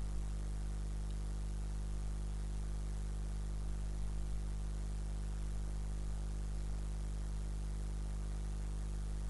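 Steady electrical hum with a stack of low overtones over a faint hiss, unchanging throughout: background noise on the narration microphone while no one speaks.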